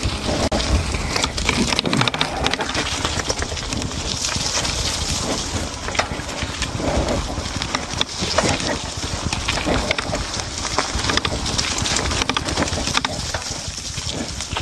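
Wind buffeting the microphone, with a steady stream of knocks and rattles as an electric mountain bike rides over a rough, rutted dirt track.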